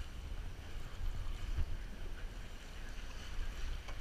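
Wind rumbling on the microphone over the wash of choppy sea against a small boat's hull.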